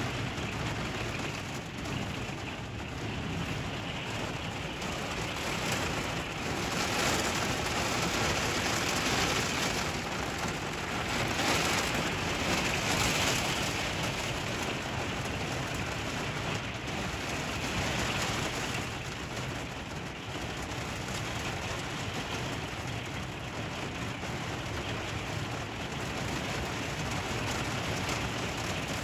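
Heavy rain pouring against an RV window, heard from inside: a steady rushing hiss that swells louder a couple of times around the middle.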